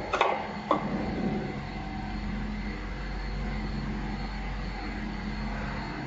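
Steady machine hum from a hot stamping machine on a workshop floor, with a few sharp clicks and knocks in the first second.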